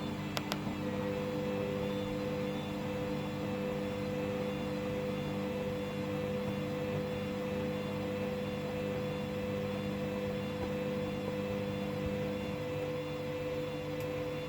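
Hoover washing machine spinning during the second spin of a cotton 90 wash: a steady motor and drum whine made of several held tones. A couple of clicks come about half a second in, a higher tone joins soon after, and a lower tone drops out near the end.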